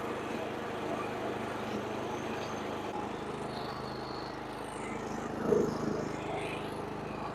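Lawn mower engine running steadily while mowing, with a brief louder sound about five and a half seconds in.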